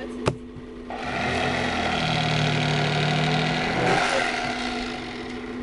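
Electric fillet knife motor starting about a second in and running steadily while it trims a catfish fillet, easing off after about four seconds.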